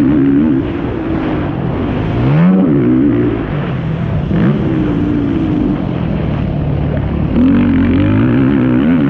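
Yamaha YFZ450R quad's single-cylinder four-stroke engine under racing throttle, its pitch rising and falling as it revs up and backs off, climbing sharply about two seconds in and again near the end.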